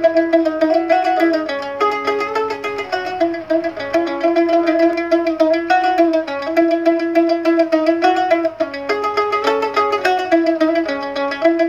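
Background music: a plucked-string melody played with rapid repeated notes, in the manner of a mandolin tremolo.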